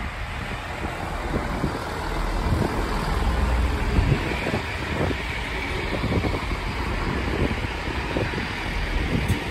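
Chiltern Railways diesel multiple unit running past, a steady rumble of engine and wheels on the rails, loudest about three to four seconds in.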